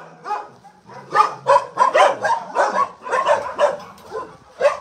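Dogs barking in quick, irregular succession, short barks one after another from about a second in, with one more near the end.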